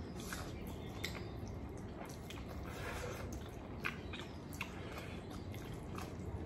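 A person chewing and eating noodles close to the microphone: quiet, irregular wet mouth clicks and smacks.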